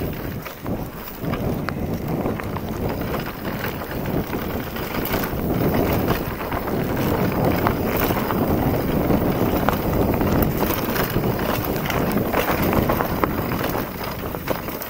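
Wind buffeting the microphone over a mountain bike ridden fast on a dirt singletrack: knobby tyres rolling over the ground and the bike rattling and knocking over bumps.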